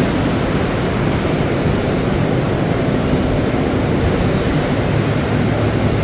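Loud, steady machinery noise of a running biochar production line: the rotary drum cooler and the belt conveyors carrying biochar, an even rushing din with a low hum underneath.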